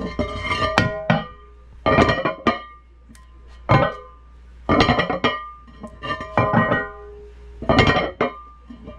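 Hammer striking a metal anvil, ringing after each blow. The blows come in about six quick groups of a few strikes each, with a pause of a second or so between groups.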